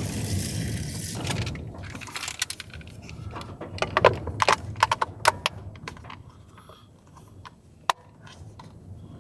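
Small objects being handled, giving a cluster of sharp clicks and clinks about two to five seconds in and one more sharp click near the end, after a hiss that dies away in the first second and a half.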